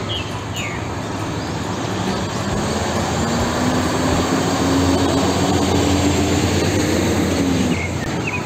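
Hino FG235Ti fuel tanker truck's diesel engine running as the truck drives past close by. Its note rises slightly and is loudest around the middle, over steady traffic noise.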